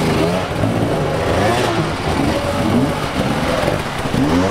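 Dirt bike engines revving in short bursts that rise and fall, several bikes at once, as the machines are worked through a rocky creek.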